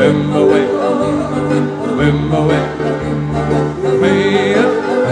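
Recorded music with a steady bass line and plucked strings, played back through a 1986 Polk Audio SRS-SDA tower loudspeaker and picked up through the air.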